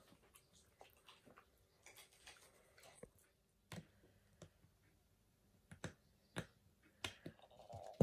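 Faint, irregular clicks and taps from a golden retriever puppy eating from a stainless steel bowl and then chewing a rubber ring toy.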